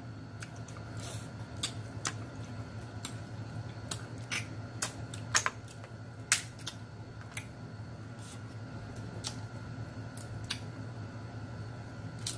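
Crab shell and a small metal pick clicking and cracking at irregular moments as meat is picked out of crab legs, the sharpest clicks a little past the middle. A steady low hum runs underneath.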